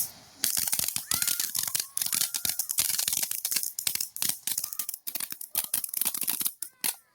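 Crackling fireworks: a dense, irregular run of sharp pops and crackles, with a few brief whistling tones mixed in, stopping abruptly near the end.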